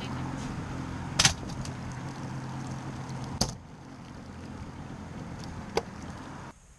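A steady low mechanical hum aboard a small fiberglass boat, which drops to a fainter level about three and a half seconds in. A few sharp knocks cut through it, the loudest about a second in.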